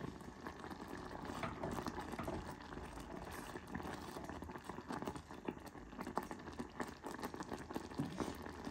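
Thick oat porridge made with coconut milk bubbling and popping at a boil in a pot, with many small irregular pops.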